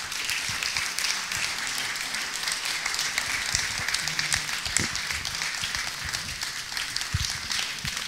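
Audience applauding steadily, many people clapping at once.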